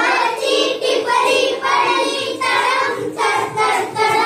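A group of young girls singing a song together.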